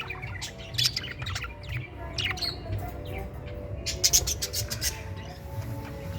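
Pet budgerigars chirping and chattering, with many quick high chirps overlapping one another, over a low steady rumble.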